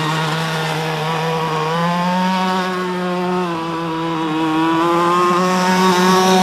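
Electric RC speedboat's twin motors running at speed, a steady buzzing whine whose pitch wavers, dipping about three and a half seconds in and rising again as the boat turns.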